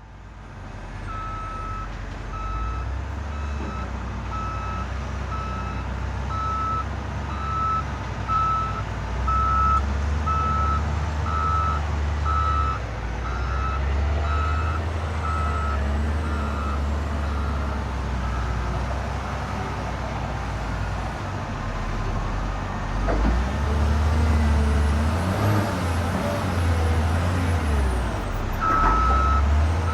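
Construction vehicle engine rumbling with its reversing alarm beeping about once a second; the beeping stops about halfway through and starts again near the end.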